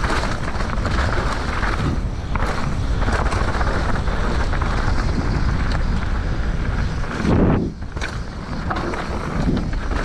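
Mountain bike descending a slippery dirt trail, heard from a camera on the rider: wind rushing over the microphone, tyres on the dirt and the bike rattling, with a heavier low thump about seven seconds in.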